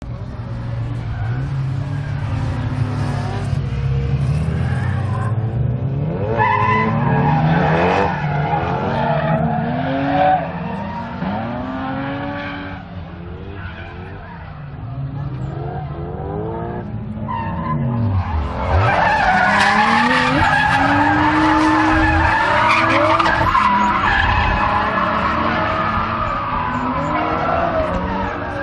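Several race cars circling a track, their engines revving up and down as they go through the gears, with skidding and tyre squeal. The sound grows louder about two-thirds of the way in.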